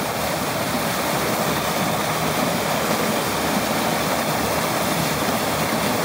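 Steady rushing of a waterfall, an even wash of falling water that holds at one level throughout.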